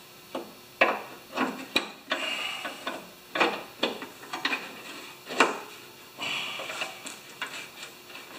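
Irregular metal clanks, clicks and scraping from a Honda mower's rear axle shaft and bracket being worked on by hand with a tool.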